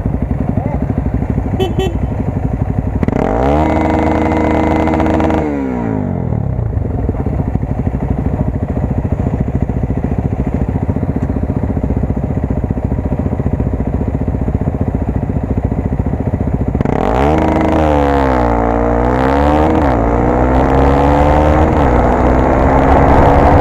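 Honda XR250 Tornado's single-cylinder four-stroke engine running on the road. It revs up about three seconds in and drops back a couple of seconds later, then revs up and down again several times near the end.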